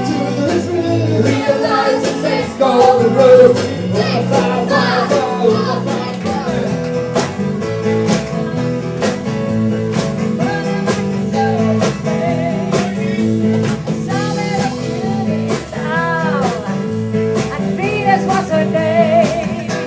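Live rock band playing: strummed acoustic guitar and electric guitar over a steady drum-kit beat, with women's voices singing into microphones.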